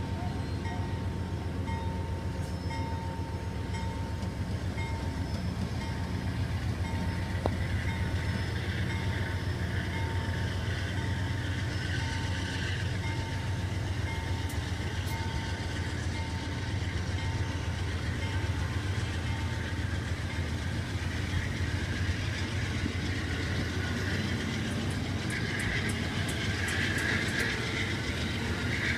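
Amtrak passenger train's stainless-steel cars rolling past on the rails, a steady low rumble of wheels on track. A higher wheel squeal swells about twelve seconds in and again near the end, with a run of quick light clicks near the end.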